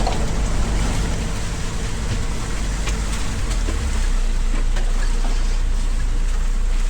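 Boat engine running steadily under a constant rush of wind and water noise, growing slightly louder about four seconds in.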